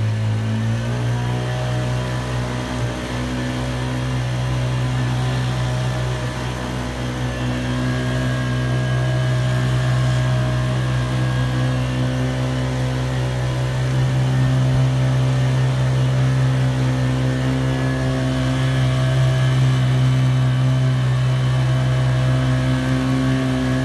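Small Honda GX35 four-stroke outboard engine running steadily at part throttle, pushing a loaded canoe. Its pitch steps up slightly about a second in, and it grows a little louder about halfway through.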